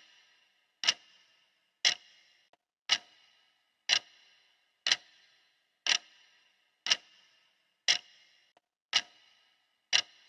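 Clock ticking steadily once a second, each tick sharp with a brief ringing tail, and a faint extra click twice between ticks.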